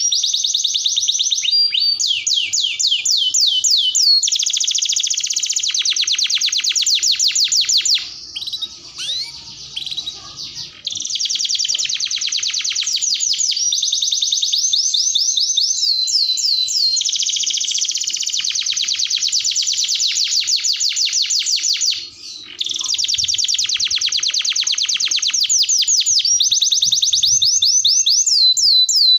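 Domestic canary singing a long song of fast, high trills and rolls, with a quieter break of about three seconds roughly a third of the way in and a brief pause about three-quarters through.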